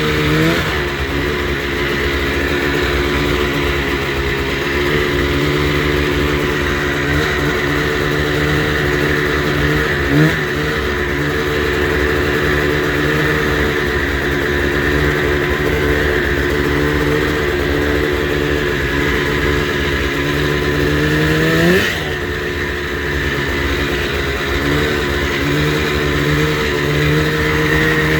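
1989 Yamaha Exciter 570 snowmobile's two-stroke twin engine, freshly rebuilt, idling steadily, with a short throttle blip about a third of the way in and a longer rise in revs about three-quarters through before it drops back to idle.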